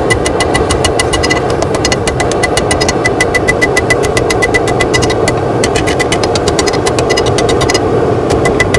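Hand hammer striking red-hot spring steel on an anvil in quick blows, several a second, each with a ringing tone, with brief pauses about a second and a half in, around five and a half seconds, and near the end. Under it runs the steady roar of the gas forge's burner.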